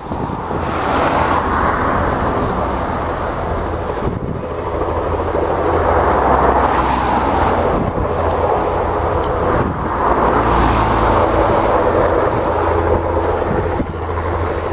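Boeing RC-135W Rivet Joint's four turbofan engines on landing approach: a loud, steady rushing rumble that swells and eases every few seconds.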